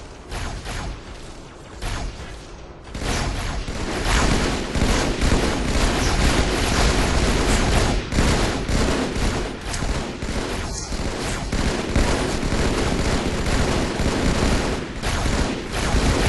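Firefight: many guns firing rapidly with overlapping shots. It starts sparse and turns into a dense, continuous volley about three seconds in.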